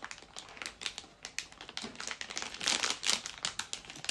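Plastic packaging crinkling and rustling as it is handled, with irregular crackles that are densest a little past halfway.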